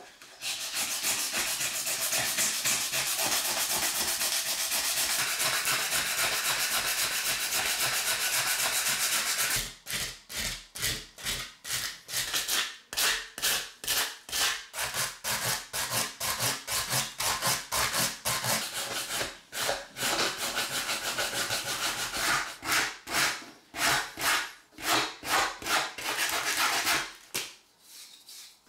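Sandpaper rubbed by hand along an old wooden knife handle, a scratchy rasp. It runs continuously for about the first nine seconds, then breaks into separate back-and-forth strokes, two or three a second, until shortly before the end.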